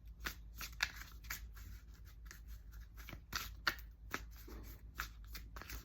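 A deck of tarot cards being shuffled and handled: a run of short, crisp card flicks and rustles, about three a second at an uneven pace.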